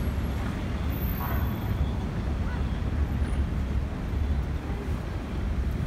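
Steady low rumble of city street traffic, with no distinct events standing out.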